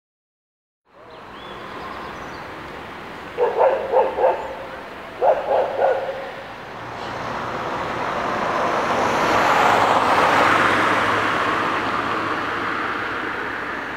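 A dog barking in two quick bursts, four barks and then three, a few seconds in. Then a vehicle passes by on the street, its noise swelling to a peak about ten seconds in and fading away.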